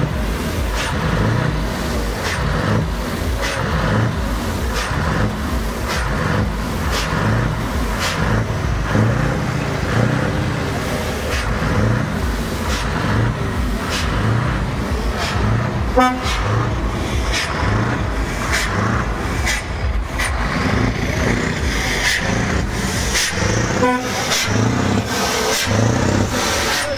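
Loud music with a steady beat, about one and a half beats a second. Two short horn toots come through it, one about two-thirds of the way in and one near the end.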